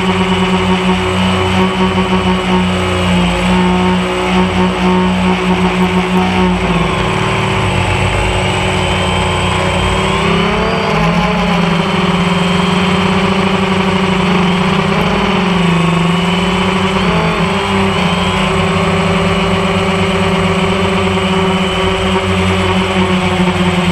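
Motors and propellers of a small camera drone in flight, a steady buzzing hum whose pitch wavers up and down for several seconds in the middle as it manoeuvres, then settles steady again.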